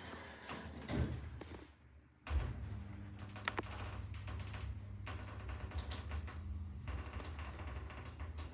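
Passenger lift: a knock about a second in, then the car starts off with a sudden jolt just past two seconds and runs on with a steady low hum, with a few light clicks.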